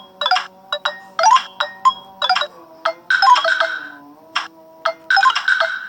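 Nokia 105 (2013) ringtone playing: a quick melody of short, bright notes over held lower tones.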